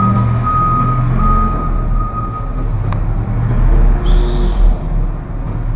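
DongCheng DZZ190 electric core drill running with a steady low drone as its core bit bores into a concrete ceiling, with a sharp click about halfway through.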